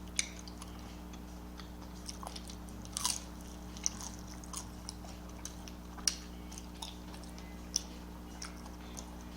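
A person chewing and biting food close to the microphone: faint, scattered crunches and mouth clicks over a steady low hum.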